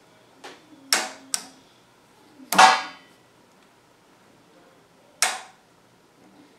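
A few separate sharp clicks and knocks of metal parts, the loudest about two and a half seconds in with a brief ring.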